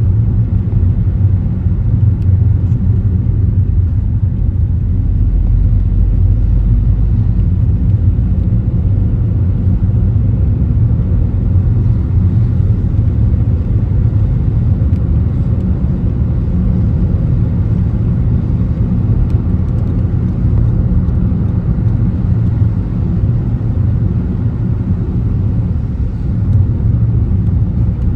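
Car driving along, a steady low road and engine rumble with no sharp events.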